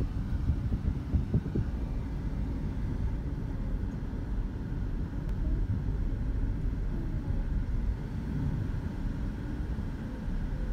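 Steady low rumble of a car's engine and tyres heard from inside the cabin while driving, with a couple of short knocks a little over a second in.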